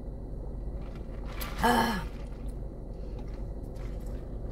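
A woman's short satisfied "ahh" after a sip through a straw, a single exhaled sound falling in pitch about one and a half seconds in. A steady low hum runs underneath.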